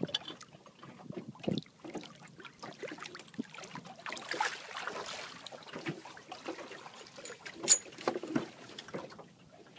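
Water splashing as a hooked banjo shark thrashes at the surface beside a small boat, with scattered knocks and bumps against the hull. A single sharp knock, the loudest sound, comes about three-quarters of the way through as the fish is hauled over the gunwale.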